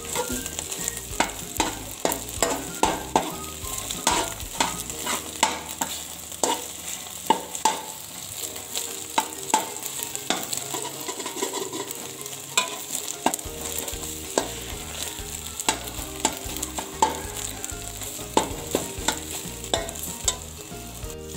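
Metal spoon scraping and tapping against a metal pan in many quick, irregular clicks as it breaks scrambled egg into small pieces. Under it is a light, steady sizzle from the hot pan with the flame turned off.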